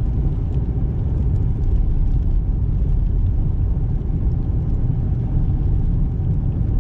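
Steady low rumble inside a car's cabin while driving on a snow-covered highway: tyre and road noise with the engine running underneath.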